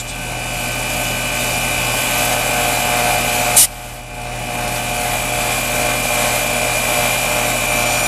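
Split-system heat pump outdoor unit running in cooling mode, a steady compressor and fan hum with a high steady tone. About three and a half seconds in, a short sharp hiss, a spurt of refrigerant as the high-side gauge hose is unscrewed from the service port.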